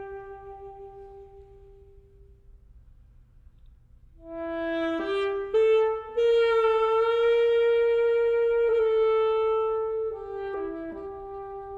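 Unaccompanied alto saxophone playing a solo cadenza. A held note fades away, and after a short pause a rising phrase climbs to a long, loud note with vibrato, followed by a few quick notes near the end.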